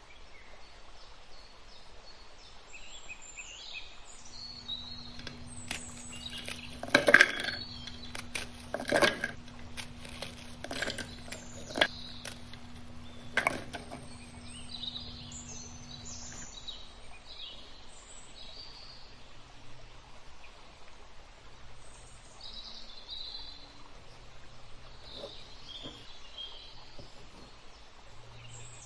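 Small birds chirping on and off. A steady low hum runs under them until a bit past the middle, and a handful of sharp clinks and knocks fall in the first half, the loudest about seven seconds in.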